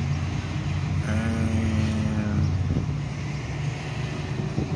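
Motor vehicle engine noise, a steady low drone, with a higher steady tone joining it for about a second and a half about a second in.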